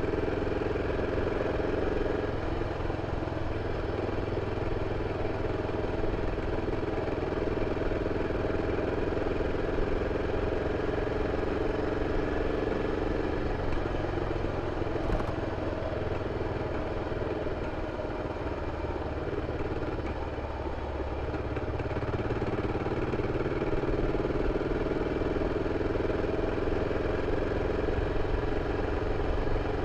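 BMW F 650 CS Scarver's single-cylinder engine running steadily through its original exhaust. It eases off slightly about two-thirds of the way through, then picks up again.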